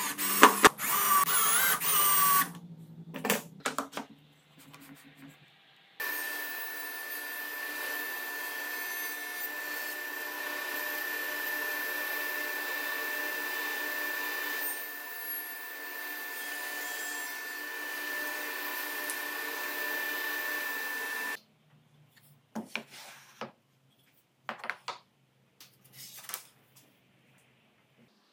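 A cordless drill whirs briefly as it drives screws into a wooden jig, followed by a few knocks. Then a Powermatic table saw runs steadily for about fifteen seconds, with a steady whine, and cuts off suddenly. Light knocks of handling wood follow.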